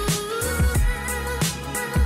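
Intro music with a steady drum beat and held melodic notes over it.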